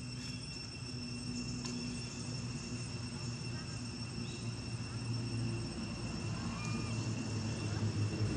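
Steady high insect drone, like crickets or cicadas, holding two unchanging high tones over a low steady hum, with a few faint short chirps.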